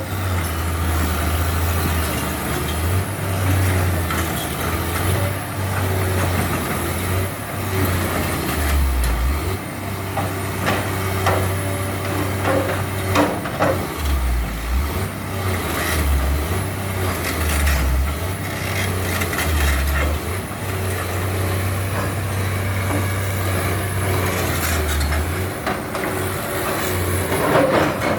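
Excavator's diesel engine running under working load, its pitch stepping up and down again and again, with scattered clanks and knocks.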